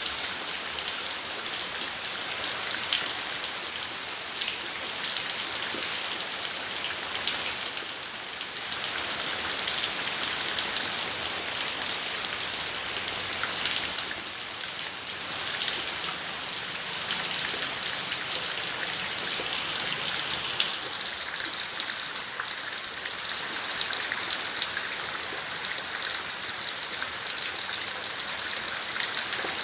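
Steady rain falling in a garden, a dense patter of drops with many small ticks, which eases slightly for a moment twice.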